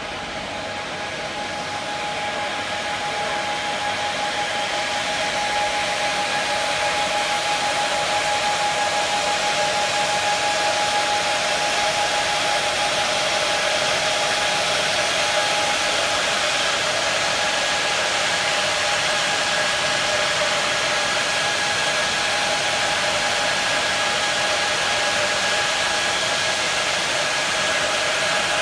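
Two electric blowers running steadily as they inflate a rescue air cushion: a continuous rushing of air with a steady whine. It grows louder over the first few seconds, then holds level.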